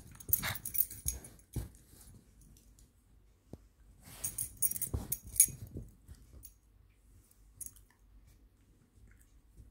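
Small dog scuffling and pawing at a hard-boiled egg on a fabric-covered couch: rustling and scratching with light clicks, in a burst near the start and another about four to six seconds in, quieter between.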